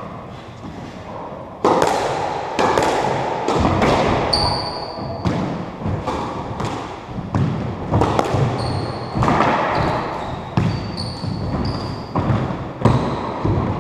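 Squash ball being hit back and forth: sharp cracks of racket strikes and the ball slapping the court walls, about once a second and echoing around the court, with a few short high squeaks of court shoes on the wooden floor.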